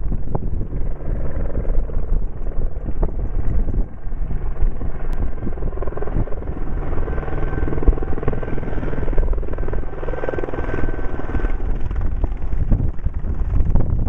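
Tour helicopter flying in and descending to land, its rotor and turbine making a steady, loud drone with a faint whine. The sound swells in the middle as it comes closer and lower.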